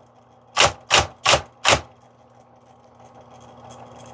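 Smith-Corona Coronet Automatic typewriter typing four keystrokes, the type striking paper on a platen freshly re-covered with shrink wrap; quiet for the last two seconds.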